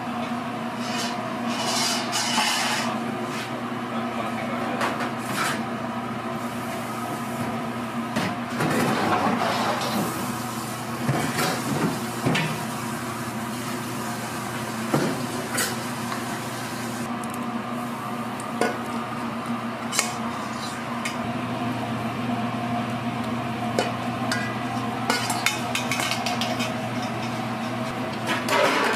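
Street food stall kitchen ambience: a steady machine hum with scattered clinks and clatter of dishes and utensils.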